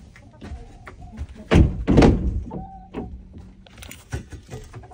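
Two heavy thuds about half a second apart, a little over a second and a half in, then a few lighter knocks.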